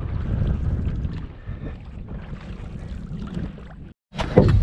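Wind buffeting the microphone in a canoe moving across a lake, a steady low rumble. It cuts off suddenly about four seconds in and is followed by a loud knock.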